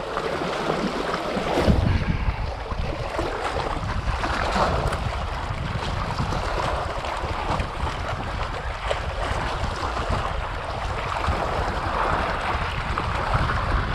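Sea waves washing against the rocks of a breakwater, with wind buffeting the microphone and a stronger gust about two seconds in.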